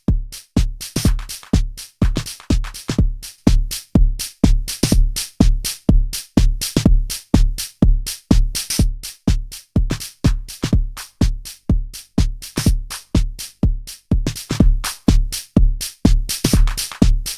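A drum loop played as a sound example of the Elysia Xpressor bus compressor, with a deep kick about twice a second and bright hi-hat or cymbal hits between.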